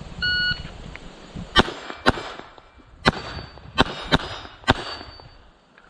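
An electronic shot timer beeps once, then six gunshots follow in quick succession over about three seconds. After some of the shots a thin ringing tone hangs on, steel targets being hit.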